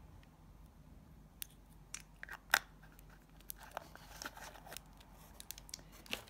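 Hands rummaging in a cardboard box lined with tissue paper and foam packing peanuts: scattered small clicks and light rustling, with one sharper click about two and a half seconds in.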